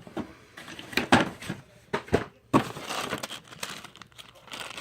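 Packaging crinkling and rustling as parts are handled and lifted out of a box, with several sharper knocks and clatters along the way.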